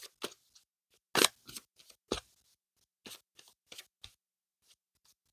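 A deck of tarot cards shuffled by hand: a scattering of short card swishes and taps at uneven intervals, the strongest a little over a second in.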